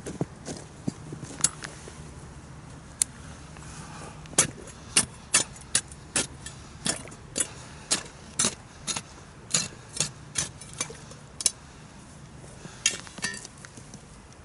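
Steel ice chisel (spud bar) chopping into the ice at a fishing hole. The sharp chops come steadily about twice a second through the middle, with a few more near the end.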